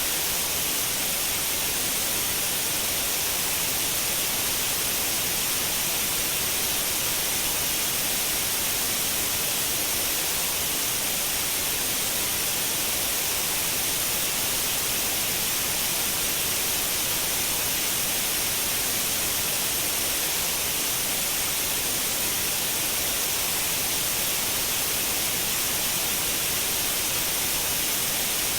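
Continuous white noise: a steady, even hiss, strongest in the high frequencies, with no change in level.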